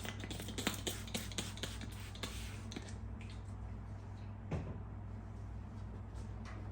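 Paper backing of a vinyl decal crinkling and tearing as it is peeled and handled. It is a dense run of crisp crackles for about three seconds, then a few scattered ones, over a steady low hum.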